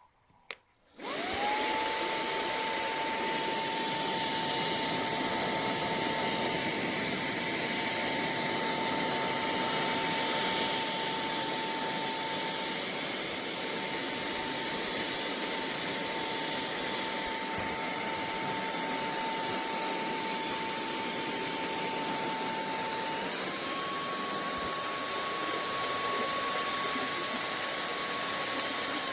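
TANYO cordless handheld vacuum cleaner switched on with a click, its motor whine rising and then running steadily at the low speed. About 23 seconds in it steps up to the second, higher speed with a higher whine, then is switched off at the very end, the whine falling away.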